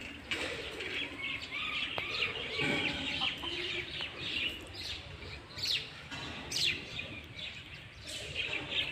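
Birds chirping and calling, many short calls overlapping throughout, with a few sharper, higher calls a little past the middle.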